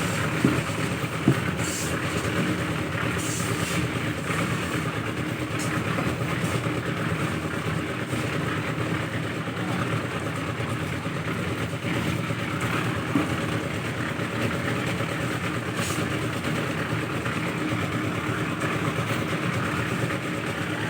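Steady mechanical running noise with a low engine-like hum, broken by a few sharp knocks, two near the start and one about thirteen seconds in.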